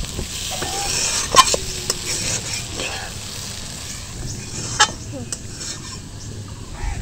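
Ridge gourd and mung dal frying with ground spices in a pan, sizzling steadily while a spatula stirs them, with two sharp knocks of the spatula against the pan, about a second and a half in and near five seconds.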